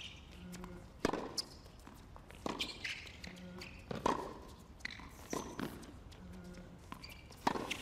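Tennis rally on a hard court: tennis ball struck by rackets and bouncing, a sharp pop about every second and a half, some in close pairs of hit and bounce.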